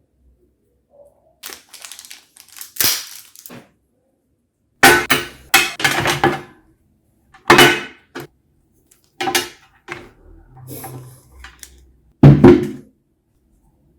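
Cardboard box and packaging being handled as a speaker set is unboxed: irregular rustles and scrapes, with several sharp knocks and thumps; the loudest is a knock near the end.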